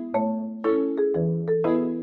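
Background music: a light tune of struck mallet-percussion notes, marimba-like, about two notes a second.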